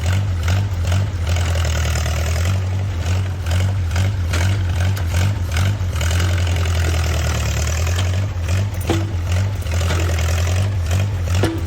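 Small 1950s crawler bulldozer's engine running steadily with a deep hum, with repeated metallic clanks and knocks from the machine working.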